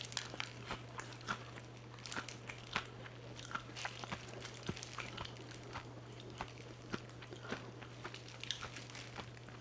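Close-up crunching and chewing of crispy fried chicken (BBQ Feel Crunch): bites into the crackly coating, with irregular sharp crunches several times a second.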